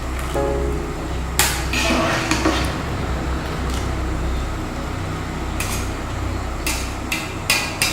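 Metal pot and utensils knocking and clinking as parboiled rice is tipped into a strainer to drain off its cooking water, with a few sharp knocks in quick succession near the end.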